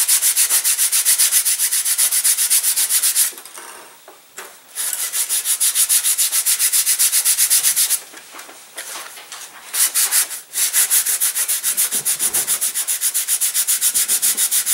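Sandpaper rubbed back and forth along the leading edge of a balsa glider wing in quick, even strokes, about five a second, stopping briefly twice: a straight bevel being sanded into the leading edge.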